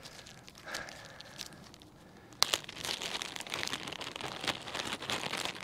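Small plastic packet crinkling as it is handled, with a sharp crackle about two and a half seconds in and steadier crinkling after it.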